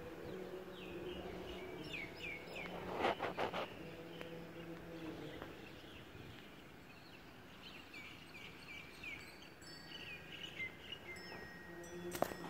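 Small birds chirping: runs of short, down-slurred notes in several bursts, over faint outdoor ambience. A brief cluster of knocks comes about three seconds in.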